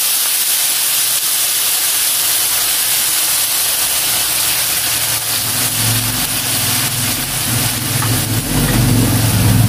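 Browned chicken and pork sizzling loudly in a hot pot as dark sauce is poured over them, a steady hiss of frying and steam. From about halfway a low engine-like hum comes in beneath it and grows louder near the end.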